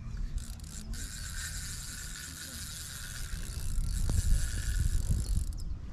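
Fishing reel ratcheting steadily for about five seconds while a hooked common carp is played on a hard-bent rod, then stopping suddenly; a single knock about four seconds in.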